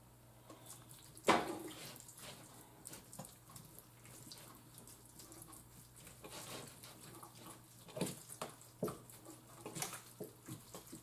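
Hands working olive oil into raw chicken thighs in a baking pan: a run of soft, wet squelches and slaps, the loudest about a second in and more of them near the end, over a faint steady hum.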